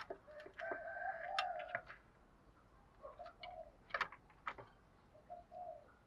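Spotted dove cooing: a long coo about a second in, then shorter coo phrases near three and again near five and a half seconds in, with a few sharp clicks in between.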